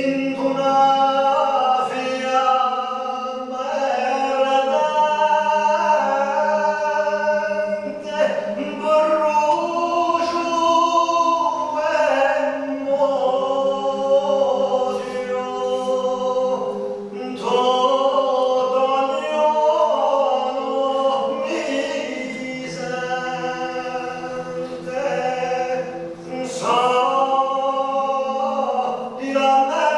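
Men's voices singing a cappella in several parts, Corsican polyphony, holding long chords in phrases of about four to five seconds with short breaks for breath between them, in a church.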